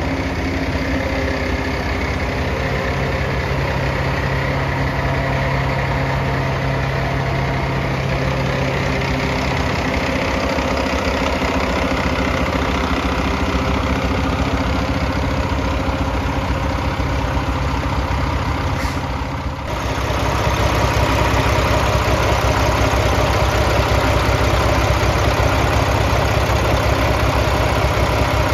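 Mack MP-8 diesel engine of a 2022 Mack Granite dump truck idling steadily. About two-thirds of the way through, the sound abruptly becomes louder and fuller in the low end.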